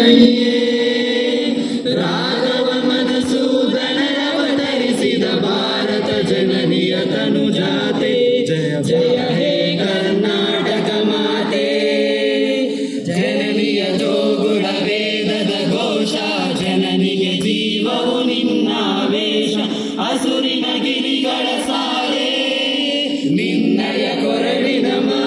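A group of students singing together in unison into a stage microphone, holding long, sustained notes.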